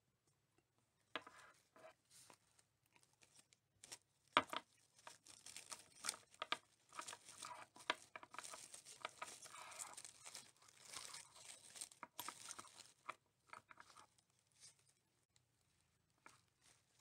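Faint crinkling and rustling with many small clicks and taps from hands handling a small glass bottle and artificial foam-rose flowers wrapped in tulle netting. It is busiest from about four to thirteen seconds in, with one sharper tap about four seconds in.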